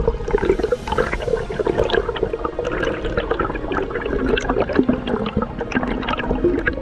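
Air bubbles gurgling and burbling underwater, heard by a submerged camera, a dense irregular bubbling throughout.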